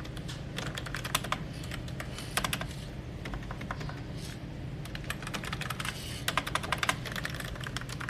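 Typing on a Mofii 666 wireless keyboard with round keycaps: quick runs of light key clicks separated by short pauses, over a steady low hum.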